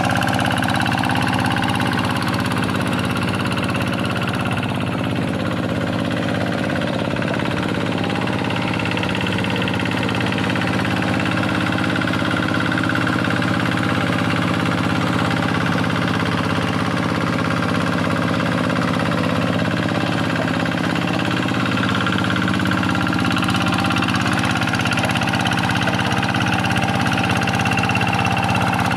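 Kubota single-cylinder diesel engine of a Quick G1000 hand tractor running steadily while plowing a wet rice paddy.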